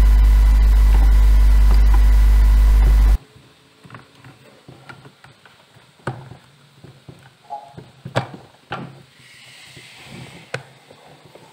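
A loud steady low hum cuts off abruptly about three seconds in. After it, faint scattered clicks and knocks of hands handling the plastic housing of a Total cordless circular saw.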